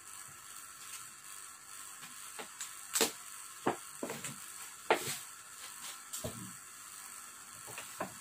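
Paper gift bag rustling and crinkling as it is opened and a knitted garment is pulled out, with several sharp crackles, loudest about three and five seconds in, over a steady faint hiss.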